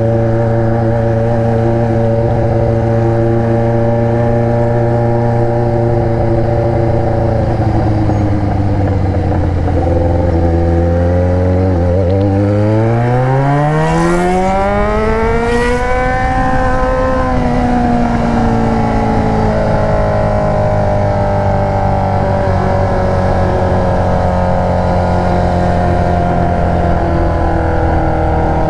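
Yamaha XJ6 inline-four engine running through an Atalla aftermarket exhaust while riding. It cruises steadily at first, then the pitch sags. Around the middle it climbs in one long rising rev as the bike accelerates, then falls back and settles into a steady lower cruise.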